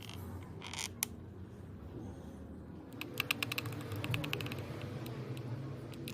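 Padlock being worked by hand, giving small mechanical clicks and rattles: a few scattered clicks, then a quick run of about ten clicks a second starting around three seconds in.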